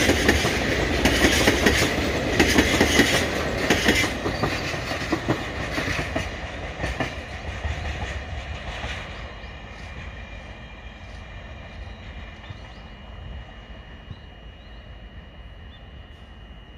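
Freight train of oil tank wagons rolling past, the wheels clattering over the rail joints, the clatter fading away over the first nine seconds or so as the train draws off. Faint steady high tones remain after it.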